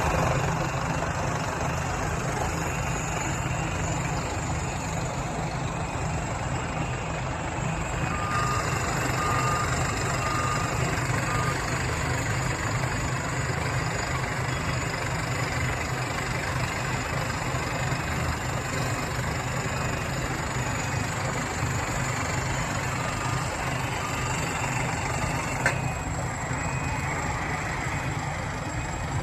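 Excavator's heavy diesel engine running steadily with a deep rumble. A warning alarm gives a few short beeps about a third of the way in, and fainter beeps come later. A single sharp click is heard near the end.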